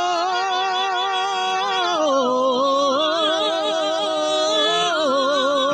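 Unaccompanied Aragonese jota singing: long held, ornamented notes with a wide vibrato. The melody steps down about two seconds in and back up near the end.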